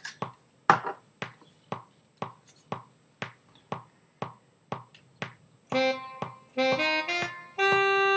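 Logic's metronome click ticking about twice a second. From about six seconds in, a short phrase of held notes follows on Logic's tenor saxophone software instrument, played from an Akai EWI 4000s wind controller.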